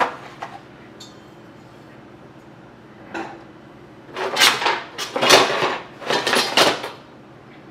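Metal items being handled and clattering: wire beverage-holder stakes and barbecue utensils knocking together in a cardboard box, in three bouts of rattling starting about four seconds in.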